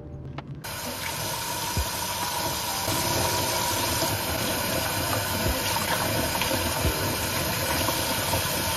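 Running water: a steady rushing hiss that starts suddenly about half a second in, with a few faint knocks.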